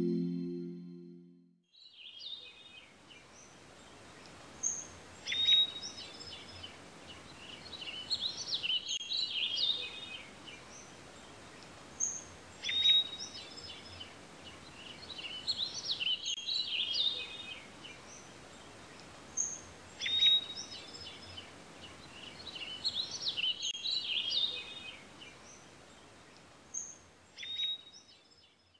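Songbirds singing over a steady outdoor hiss, beginning about two seconds in. A short burst of chirps and trills recurs in the same shape about every seven seconds, like a looped nature-sound track.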